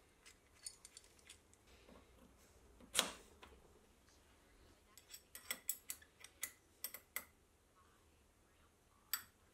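Faint metallic clicks and taps of a steel expanding mandrel being seated in a dividing head's spindle and an Allen key being fitted to its cap screw. There is a firmer knock about three seconds in and a quick run of light ticks from about five to seven seconds.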